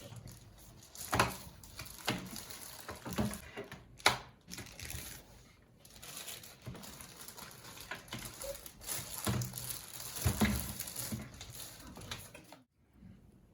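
Packaging being handled: crinkling and rustling with scattered knocks and clicks, stopping abruptly near the end.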